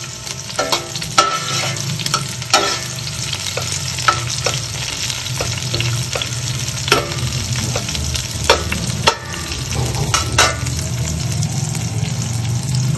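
Sliced onions and whole spices sizzling in hot oil in a stainless steel pot, stirred with a metal slotted spatula that clinks sharply against the pot now and then. The onions are being fried lightly, only softened and not browned.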